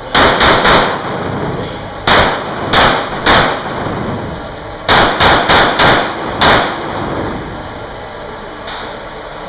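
Pistol shots fired in rapid strings inside an indoor range: three quick shots, a short pause, three more, then five in quick succession about five seconds in.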